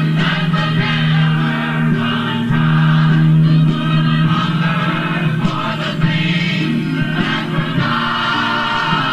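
A congregation singing a gospel hymn together, with long held notes over a steady low accompaniment.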